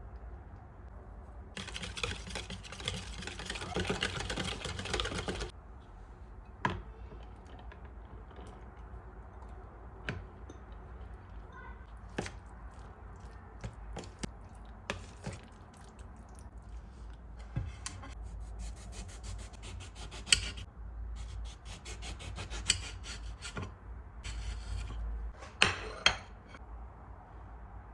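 Kitchen food-preparation sounds: a few seconds of scraping early on, then scattered clicks and knocks of utensils and dishes.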